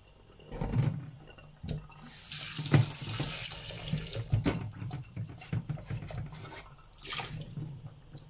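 Kitchen tap running into a glass bowl of sliced white onion in a stainless steel sink, rinsing the onion, for a couple of seconds about two seconds in. Short knocks and splashes come from the bowl and hands as the onion is sloshed and squeezed.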